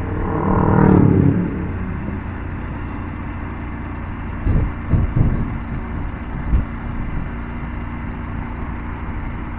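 Wind rush and the steady running of a Triumph Tiger 900's three-cylinder engine at cruising speed. About a second in, oncoming motorcycles pass close by, their engine note swelling and then fading.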